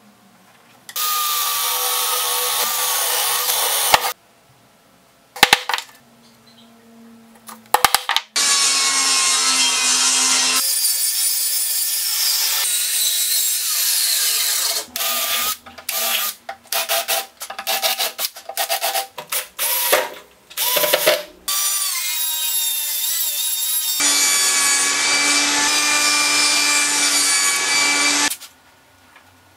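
Electric woodworking tools run in several separate stretches, each starting, cutting wood for a few seconds and stopping, with a run of short on-off blips in the middle. Among them are a handheld circular saw cutting a board and a saw cutting through a wooden strip near the end.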